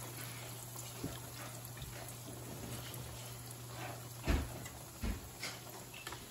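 Breaded pork cutlets sizzling steadily in shallow canola oil in a frying pan, with a few short knocks of metal tongs; the loudest comes about four seconds in.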